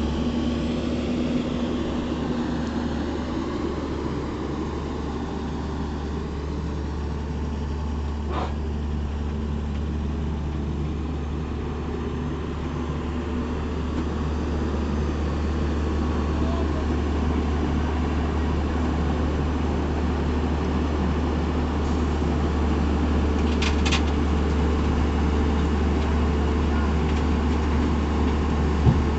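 Heavy diesel machinery engine running steadily with a low, even hum, and a single sharp knock near the end.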